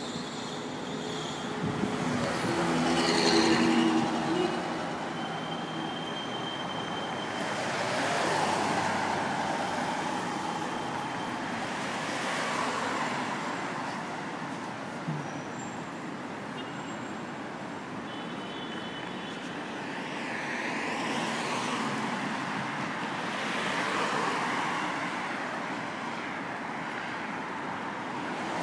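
City road traffic, with vehicles swelling and fading as they pass every few seconds over a steady background rush.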